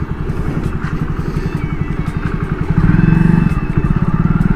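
Motorcycle engine running with a fast, even beat, getting louder about three seconds in.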